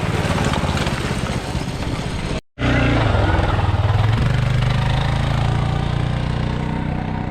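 Golf cart engine running while driving, with a steady low hum. The sound cuts out for a moment about two and a half seconds in, then carries on.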